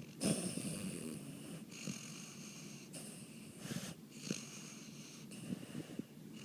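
Snoring in sleep: slow wheezy breaths about every two seconds, with short snorts and snuffles in between.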